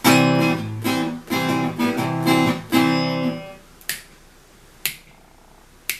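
A guitar strumming a few chords of a country song intro, ringing out about three and a half seconds in, followed by sharp finger snaps about once a second keeping time.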